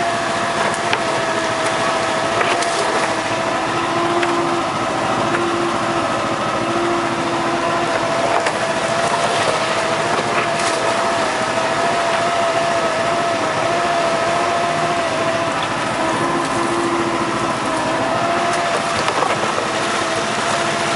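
Outboard motor running steadily under way, a hum that wavers slightly in pitch, over the rush of water along the hull. A few faint knocks come and go.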